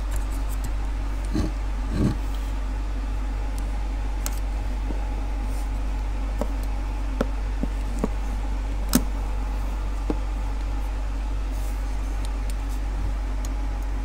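A few short, sharp clicks and knocks from hands and a screwdriver working on a removed washing machine motor and the sensor cap on its end, over a steady low hum.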